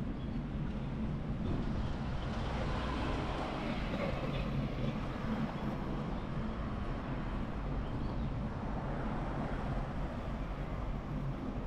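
Steady low rumble and road noise of a vehicle in motion.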